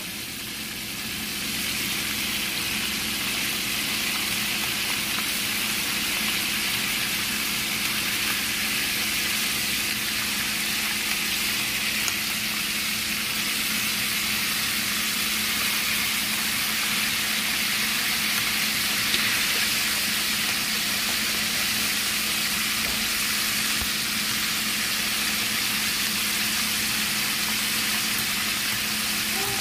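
Whiting fillets deep-frying in a pot of hot oil, the oil sizzling with a steady, even hiss.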